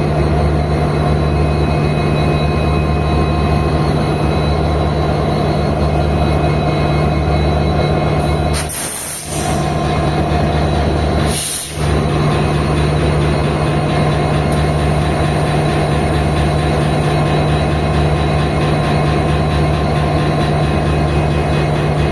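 EMD WDP-4D diesel locomotive's two-stroke V16 engine humming steadily, with a deep beat that throbs about once a second. Twice, about nine seconds in and again two and a half seconds later, a brief hiss cuts across the hum.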